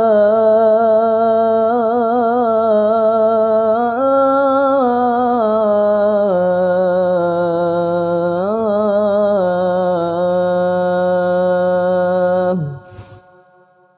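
A boy's voice chanting the adhan, drawing out the close of 'ḥayya ʿalā ṣ-ṣalāh' in one long, ornamented melismatic note. The pitch steps up about four seconds in, turns briefly near the middle, and the note breaks off about twelve and a half seconds in.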